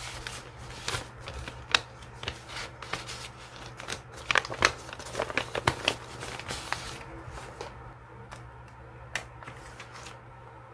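Crinkling and rustling of a soft paper-like pouch and the sticker sheets inside it as they are handled, a run of quick sharp crackles that is busiest midway, then thins to a few separate clicks near the end.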